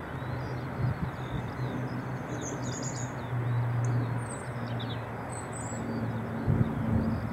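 Airbus A380's jet engines running at taxi idle, a steady rumble with a low hum, while small birds chirp over it. Two brief low thumps come about a second in and near the end.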